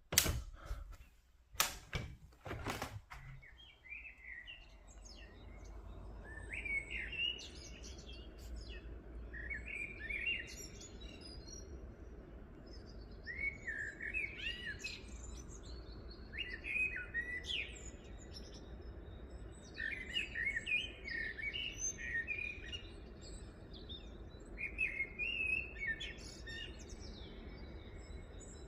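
A few sharp knocks in the first three seconds, then a songbird singing short phrases of quick chirps, repeated every couple of seconds over a steady low background rumble.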